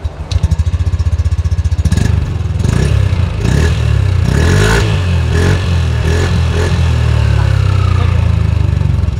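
Yamaha LEXi LX 155 VVA scooter's single-cylinder engine (the NMAX 155 engine), recorded at its stock exhaust, starting and running. It is revved up and down a few times through the middle, then settles to a steady idle.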